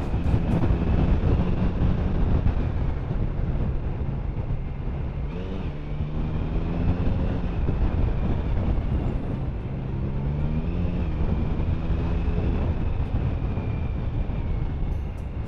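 Steady road and engine noise inside a moving car's cabin: a low rumble, with the engine's hum shifting in pitch a couple of times.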